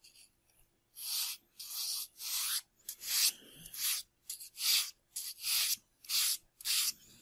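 Sandpaper rubbed in short back-and-forth strokes over the trailing edge of a foam tailplane, about two strokes a second, starting about a second in.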